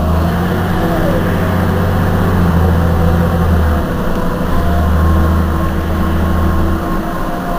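Heuliez GX 127 city bus's diesel engine idling while the bus stands at a stop: a steady low rumble with faint higher whining tones, easing briefly about four seconds in.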